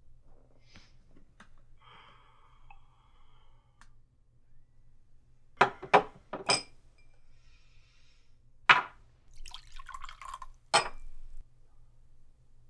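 Whiskey poured from a cut-glass decanter: its glass stopper and the tumbler clink sharply, three times in quick succession about halfway through and twice more later, with the liquor trickling into the glass between them.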